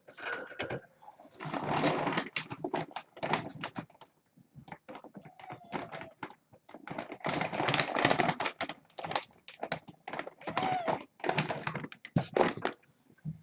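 Kittens crunching dry kibble: dense, irregular crisp clicks and crunches in clusters with short pauses between them.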